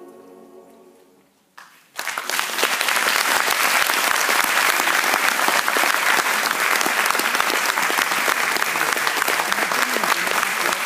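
The last held chord of a choir fades away, and about two seconds in the audience breaks into loud, steady applause that carries on.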